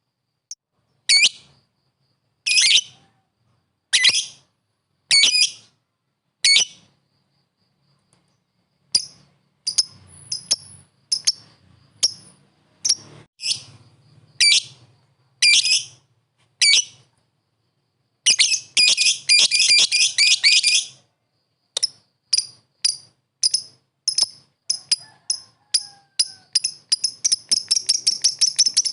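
Lovebird calling with sharp, high-pitched shrieks, single calls about a second apart at first, then a fast run of chattering calls about two-thirds of the way through. The calls come quicker and quicker near the end, a challenge call aimed at a rival bird.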